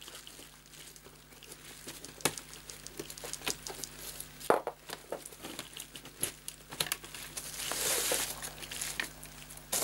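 Handling noise as a metal-backed LCD panel is fitted into a TV's plastic bezel on bubble wrap: plastic crinkling with scattered light clicks and knocks, and a louder rustle about eight seconds in.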